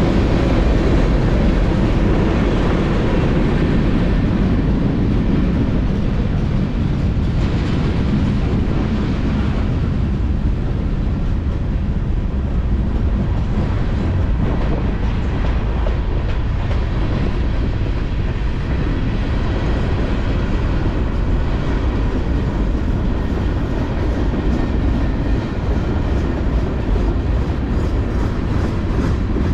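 Freight cars of a mixed freight train (tank cars, covered hoppers and boxcars) rolling steadily past: a continuous rumble of steel wheels on the rails, with faint wheel clicks over the rail joints.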